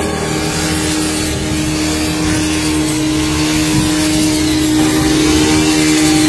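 Backpack-mounted engine of a rice reaper (brush-cutter-type paddy harvester) running at high speed, a steady drone with slight rises and dips in pitch as the blade cuts through standing paddy.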